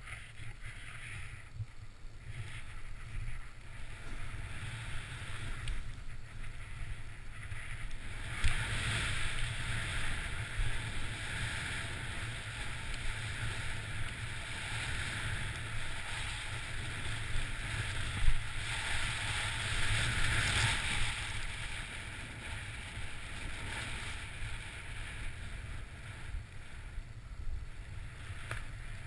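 Hissing of snow under a rider sliding fast through powder, swelling and fading with the turns, over a low rumble of wind on the microphone. There are a couple of brief thumps, about a third of the way in and again past the middle.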